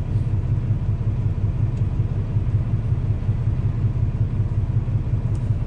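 Semi truck's diesel engine running, a steady low rumble with a fast even pulse.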